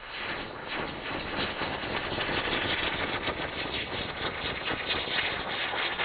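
Ground-spinner firework (a 'bailarina' with no end cracker) spinning as it burns, its charge hissing with rapid crackling, getting louder over the first couple of seconds.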